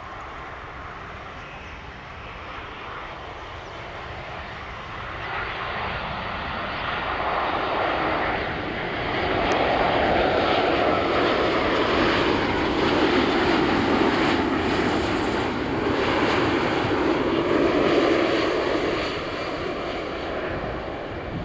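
Boeing 787-10 jet airliner on final approach with landing gear down, its engines at low approach thrust. The jet noise builds as it comes in and is loudest from about halfway through as it passes close by, with a whine that drifts in pitch as it goes past.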